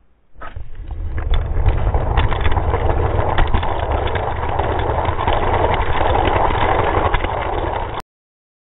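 Hot Wheels die-cast cars rolling along orange plastic track: a loud, steady rattling rumble full of small clicks. It starts about half a second in and cuts off suddenly near the end.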